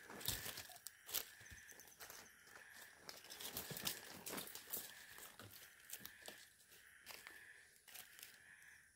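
Nylon tent fabric and plastic sheeting rustling and crinkling as they are handled and spread out, with scattered small crackles and knocks.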